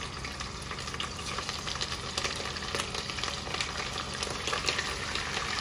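Food frying in hot oil in a plov kazan: a steady sizzle with dense crackling spatter.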